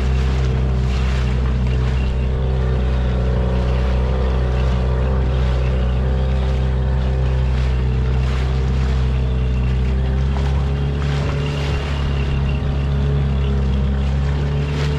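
Outboard motor on an inflatable boat running steadily under way, with wind and water rushing past the hull. The engine note shifts slightly about ten seconds in.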